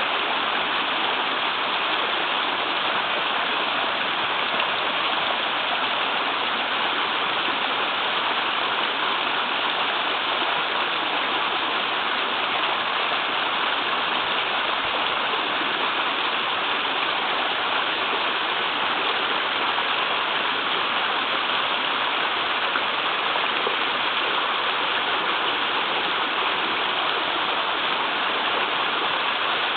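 Small waterfall in a river, water rushing and splashing steadily over rocks, a constant, even roar with no pauses.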